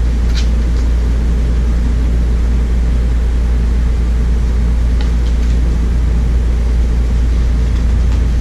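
A steady low mechanical hum, with a soft rustle of a book page being turned about half a second in.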